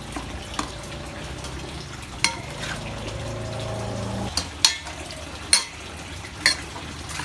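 Metal spoon stirring glass-noodle salad in a stainless steel mixing bowl, with several sharp clinks as the spoon strikes the bowl's side. A low steady hum in the background cuts off about four seconds in.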